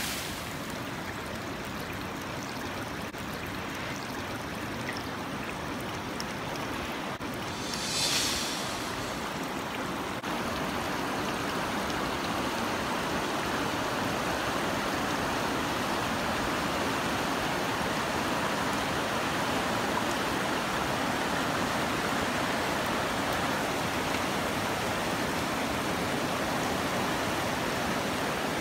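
Floodwater of the swollen River Ribble rushing and pouring over walls and railings: a steady, unbroken rush of water, louder from about ten seconds in. A brief hiss stands out about eight seconds in.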